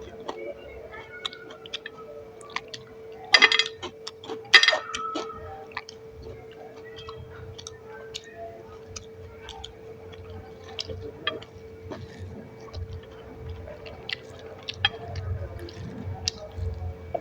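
Close-miked eating sounds: wet chewing and smacking with scattered small clicks, and two louder crunchy bites about three and a half and four and a half seconds in. A faint steady hum sits underneath.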